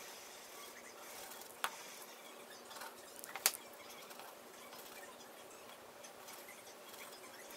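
Faint scratching of hand drawing on paper over a steady hiss, with two sharp clicks, one about a second and a half in and a louder one about two seconds later.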